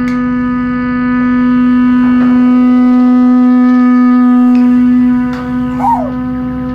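Experimental music played on dumpsters: a loud drone held on one steady pitch with many overtones, with a few sharp metallic knocks and a brief wavering squeal near the end.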